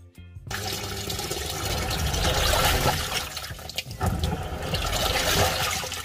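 Bosch Series 6 top-load washing machine (WOI705B0IN) in its wash cycle: water splashing and churning in the drum as the towels are agitated. The sound sets in about half a second in.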